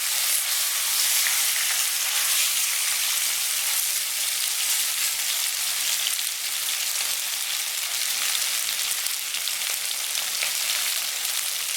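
Marinated chicken pieces shallow-frying in hot sunflower oil in a pan, a steady high sizzling hiss.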